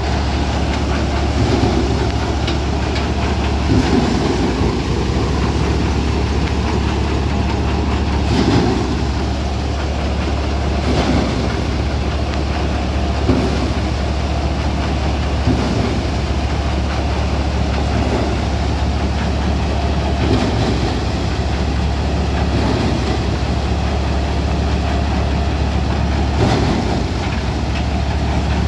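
Sonalika DI-47 RX tractor's 3200 cc engine driving a Dashmesh paddy thresher under steady load: a constant low drone with the threshing drum's rough whirring over it. Brief louder swells come every few seconds as sheaves of paddy are fed into the drum.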